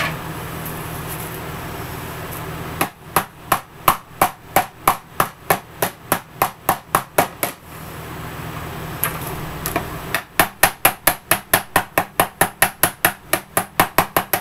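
Claw hammer striking a bent metal license plate on a wooden anvil block to flatten it, in two fast runs of blows about four to five a second, with a pause of a couple of seconds between them.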